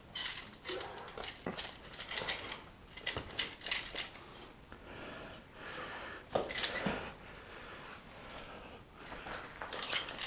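A person wading through knee-deep mine water: irregular splashes and sloshes, with small knocks and clinks mixed in.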